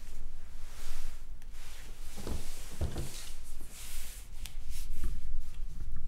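Hands sliding and rubbing over a sheet of paper on a table, a papery rustle that comes and goes in several swells, with a few light clicks about three-quarters of the way through.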